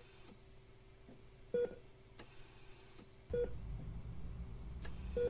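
Hospital bedside heart monitor beeping: short single beeps at an even pace, about one every two seconds, over a faint steady hum that grows a little louder partway through.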